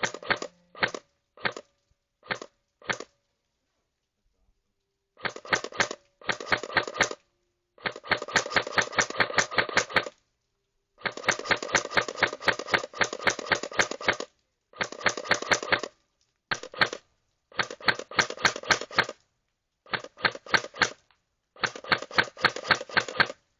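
K2A airsoft rifle firing: single shots at first, then bursts of rapid shots with short pauses between them.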